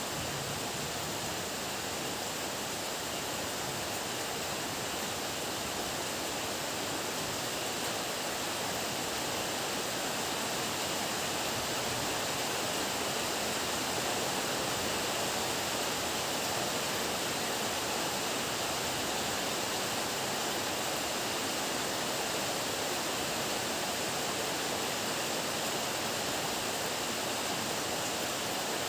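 Heavy rain falling in a steady downpour, an even hiss with no thunder.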